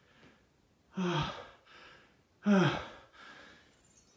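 A man's voice letting out two short, breathy sighs about a second and a half apart, each falling in pitch.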